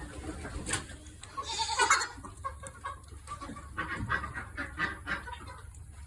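Chickens clucking, many short calls overlapping, with one louder call just before two seconds in.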